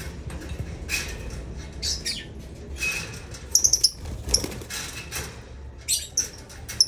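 Lovebirds giving short, shrill chirps, several in a quick cluster about three and a half seconds in and again near six seconds, among scratchy rustling and clicks.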